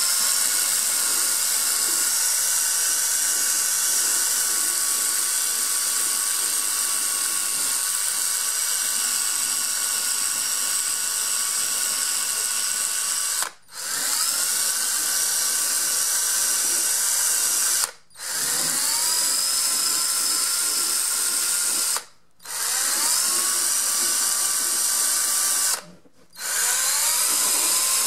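Cordless drill spinning a wire foam-shaping disc against the foam rubber of a motorcycle seat, grinding it down with a steady motor whine. The drill stops briefly four times, its whine rising each time it spins back up.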